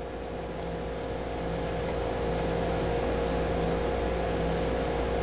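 Steady hiss with a low electrical hum and a faint steady tone: the noise of an open microphone and computer with nobody talking, growing slightly louder.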